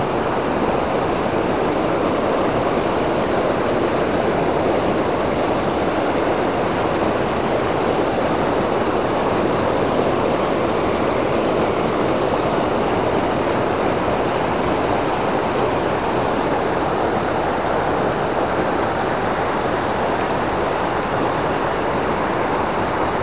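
Mountain torrent rushing over rocks and small cascades: a steady, unbroken rush of white water.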